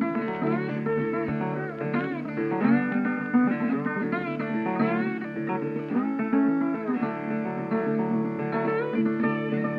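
Background music: guitar playing, plucked notes with sliding pitches, in a blues style.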